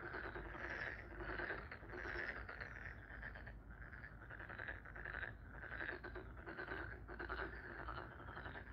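A steady chorus of animal calls repeating about twice a second, over a faint low hum.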